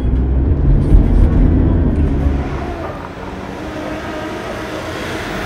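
Mitsubishi Montero SUV driving. A low engine rumble for the first couple of seconds fades away, then engine and road noise grow louder near the end as the vehicle approaches.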